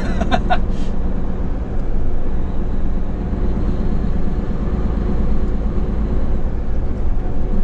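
Diesel engine of a Hino heavy truck running steadily, a low drone with road noise heard from inside the cab.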